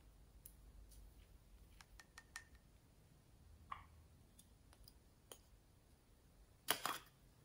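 Faint scattered clicks and taps of small plastic topping bottles and their caps being handled, with a louder burst of clicks near the end.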